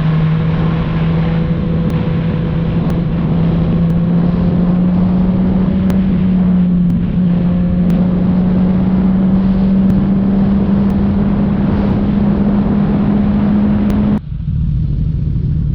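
Suzuki Katana motorcycle engine through an aftermarket Orion exhaust, pulling steadily under way with its note climbing slowly as speed builds. About fourteen seconds in the throttle is rolled off and the pitch and loudness drop suddenly.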